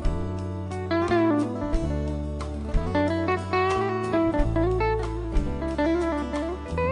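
Live band playing an instrumental break: an electric guitar plays lead lines with bent, wavering notes over steady bass notes and drums.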